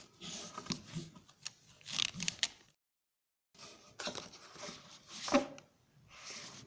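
Short bursts of noise packed with sharp clicks, each broken off by abrupt cuts to dead silence.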